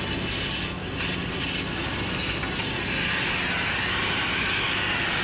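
Gas cutting torch burning with a steady hiss, growing louder about three seconds in.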